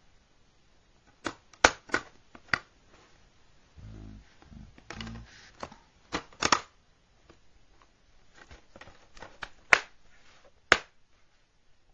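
Sharp plastic clicks and snaps of a DVD case being handled, the disc pressed on its centre hub and the case snapped shut near the end; the clicks come in small groups of two or three.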